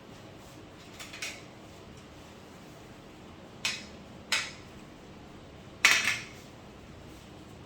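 Light clinks and clatters of small hard objects being handled and set down during TV repair work: a faint pair early, two sharp clicks in the middle, and the loudest short burst of clattering later.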